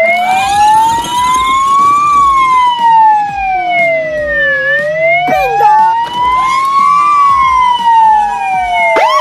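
Police-style siren wailing, its pitch slowly rising and falling twice, each cycle about five seconds long.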